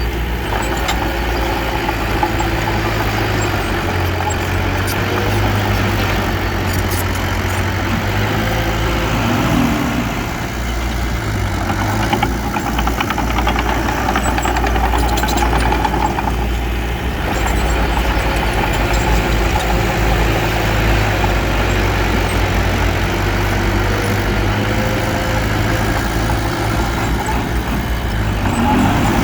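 Heavy diesel engine of a bulldozer running steadily under load, dipping briefly twice before picking up again.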